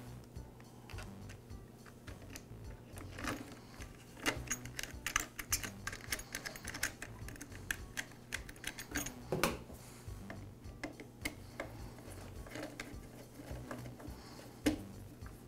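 Irregular small clicks and taps of plastic parts and a gasket being handled and seated onto a small two-stroke blower engine as the air filter base and carburetor are refitted, with a few louder knocks.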